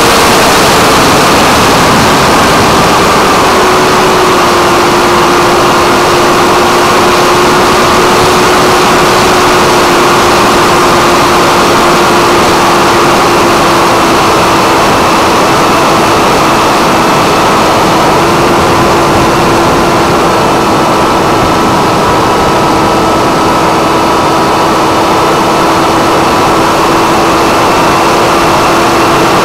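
Brushless electric motor and pusher propeller of a 6S Funjet FPV plane in flight, a steady drone whose pitch eases down slightly in the first few seconds and then holds, under heavy wind rush on the onboard camera's microphone.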